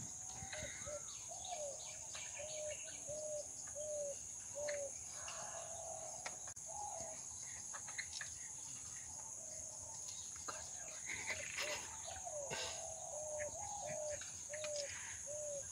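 A bird calling a run of short, evenly spaced hooting notes, about three every two seconds, twice: once early and again near the end. Behind it a steady high insect drone.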